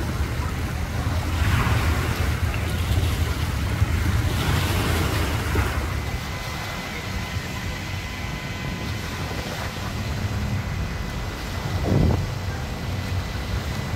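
Wind buffeting the microphone over water lapping at the dock, with a couple of louder gusts in the first half.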